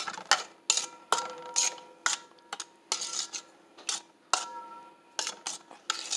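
Metal spoon stirring thick barbecue sauce in a stainless steel mixing bowl, the spoon clinking against the bowl's side about twice a second, each clink leaving a short metallic ring.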